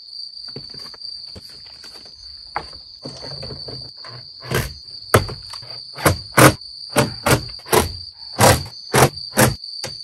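A run of about a dozen sharp knocks on a van's door trim panel from about halfway on, as the panel is fitted back onto the door. Insects keep up a steady high trill throughout.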